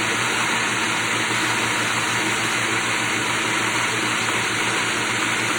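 Ninja single-serve blender running steadily at full speed, its motor whirring as it purees banana with the peel, frozen blueberries and water.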